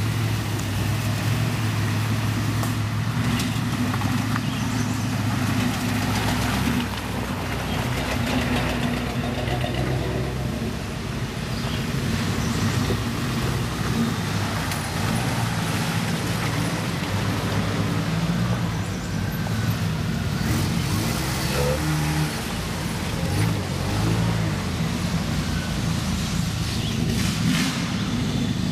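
Several Jeep engines running at low speed as the Jeeps crawl along a dirt trail one after another, the engine note rising and falling slightly.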